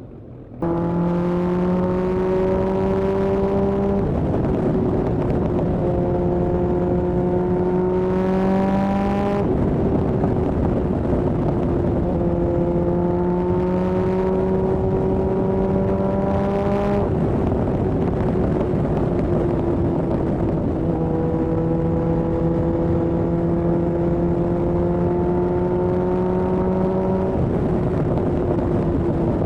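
Kawasaki ZRX1200R's air-cooled inline-four, breathing through Yoshimura TMR-MJN carburetors, running under way. It comes in loudly about half a second in, and its pitch creeps up slowly and drops back several times as the ride goes on.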